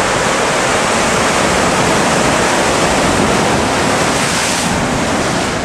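Ocean surf surging through a narrow rock channel: a loud, steady rush of churning white water.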